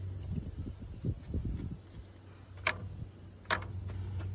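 Hand tools and engine parts being handled in an engine bay: a few soft knocks, then two sharp metallic clicks under a second apart, over a low steady hum.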